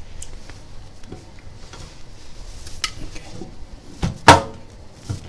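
Light clicks and handling noise, then a loud metallic clank with a short ring about four seconds in, as the round chamber door of an OCA bubble-remover machine is shut and latched with its handle.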